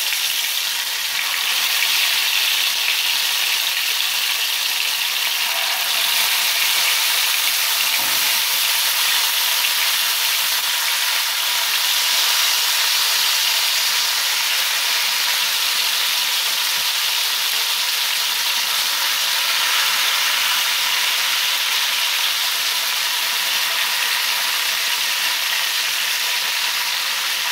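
Marinated chicken drumsticks shallow-frying in hot oil, a steady sizzle that swells a little as more drumsticks go into the pan during the first dozen seconds.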